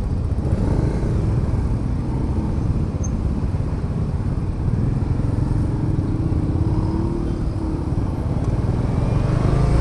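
Bajaj Dominar 400's single-cylinder engine running on the move, with a steady low rumble of engine and road noise and a faint tone rising slowly around five to seven seconds in.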